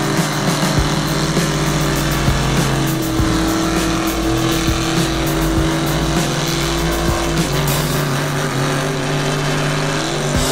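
Mega truck engine running hard at steady high revs under load during a tug, pulling with its tires spinning in the dirt. The pitch stays level for several seconds and rises slightly near the end.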